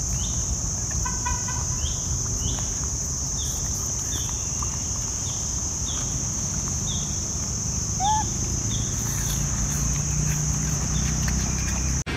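Forest ambience: insects droning steadily at a high pitch while a bird chirps short notes over and over. A brief call sounds about a second in and another short arched call about eight seconds in, over a low rumble.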